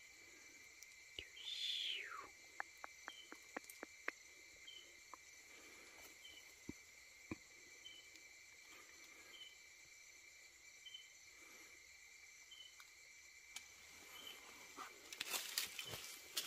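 Night insects, crickets, trilling steadily with a short chirp repeating a little more than once a second. There is a falling squeal about two seconds in, a quick run of clicks just after it, and rustling of brush near the end.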